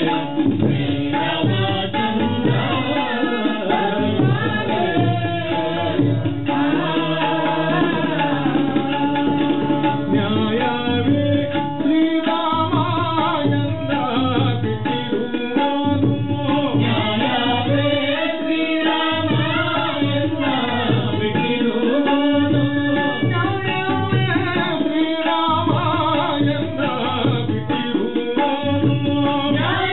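Traditional accompaniment music for a leather shadow-puppet play: hand drums keep up a steady rhythm under a melody that moves from note to note.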